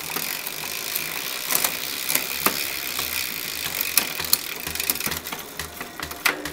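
Mountain bike's rear freehub ratcheting in a fast, steady ticking as the wheel freewheels during a service, stopping about five seconds in, with a few sharper clicks.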